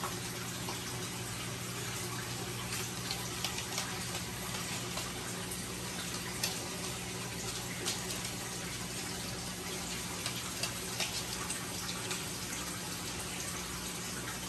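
Aquarium water running and bubbling from the tank's filtration, a steady rush with a low hum under it and scattered small pops and splashes.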